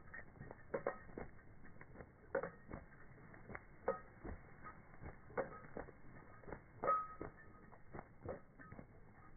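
A dog whimpering in short, faint squeaky whines, repeated about every second or so.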